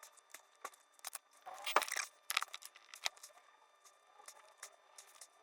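Small clicks and rustles of hands working on a leather bag and its zipper during a stitching repair, with a louder rustle lasting about half a second roughly a second and a half in.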